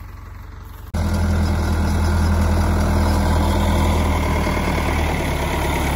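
Diesel engine of a heavy farm machine idling steadily, coming in loud about a second in.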